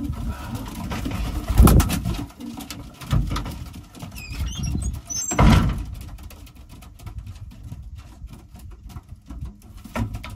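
Racing pigeons cooing in the loft, with two loud knocks of handling about a second and a half and five and a half seconds in, and a run of fine clicks later on.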